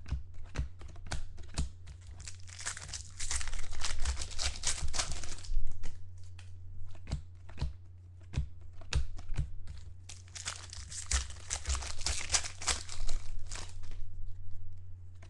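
Foil wrappers of trading card packs crinkling and tearing as they are ripped open, in two long stretches, with short clicks and taps of cards being handled between. A steady low hum runs underneath.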